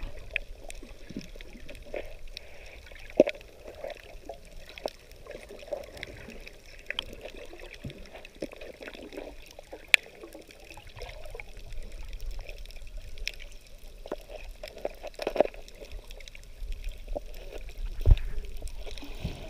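Water sounds picked up by a camera held under the surface among swimming snorkellers: a steady wash of water noise dotted with sharp clicks and knocks.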